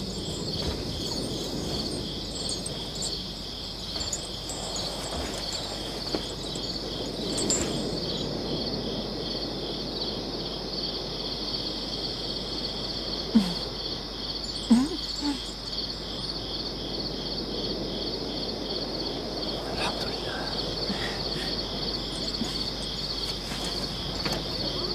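Crickets chirping steadily, a night-time ambience, over low background noise. Two brief low sounds stand out about halfway through.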